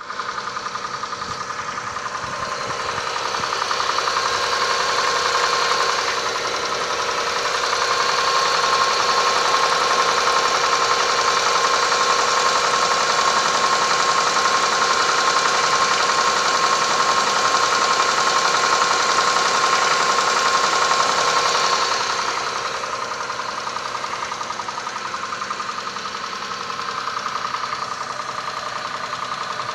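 Mitsubishi 6A13 V6 engine running cold with a fast, steady knock. The engine gets louder from about 8 s to about 22 s, as if the revs are raised, then settles back.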